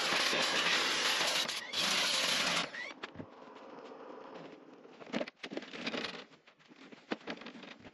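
Stanley SXPW22E electric pressure washer spraying its jet onto a lawn mower's deck and wheels: a loud, steady hiss that breaks briefly once and stops about two and a half seconds in. After that come a quieter hiss and a few scattered knocks and clicks.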